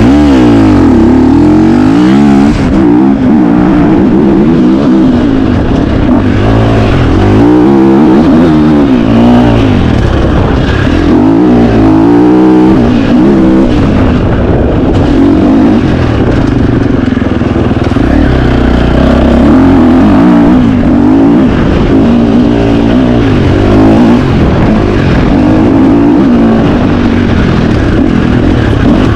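Single-cylinder four-stroke dirt bike engine of a 2025 KTM 350 XC-F, ridden hard and heard up close, revving up and down over and over with the throttle, its pitch rising and falling every second or two.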